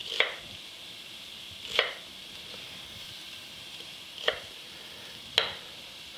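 Chef's knife chopping an onion coarsely on a wooden cutting board: four separate knocks of the blade on the board, unevenly spaced, over a faint steady sizzle of pork shoulder browning in a pot.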